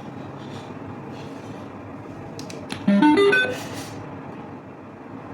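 A few clicks, then about three seconds in a short, loud chime of quickly rising notes from a Google Pay sound box's speaker fitted with a Bluetooth module, typical of the module's power-on or pairing prompt tone. A steady hiss runs underneath.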